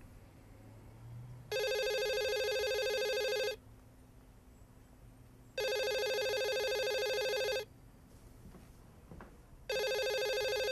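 Corded desk telephone ringing: three rings, each about two seconds long with about two seconds between them.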